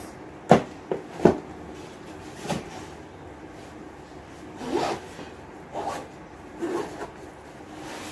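Schoolbooks knock into a fabric backpack with a couple of sharp thuds. Then the backpack's zipper is pulled shut in three short rasping strokes.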